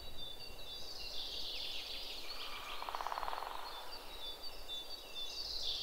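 Woodland birdsong over a faint background hiss: several birds giving high chirps, trills and short whistled notes. About halfway through, a lower, rapidly pulsing trill joins them.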